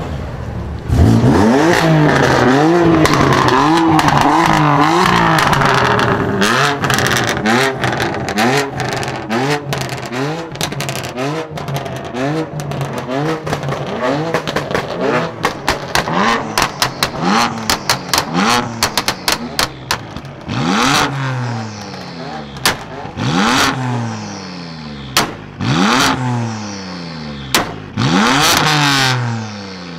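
BMW M car exhausts revved hard again and again, the pitch swinging up and down, with rapid pops and crackles on the overrun. In the last ten seconds a BMW M4 with quad tailpipes blips its throttle in short, separate revs, each ending in a few sharp pops.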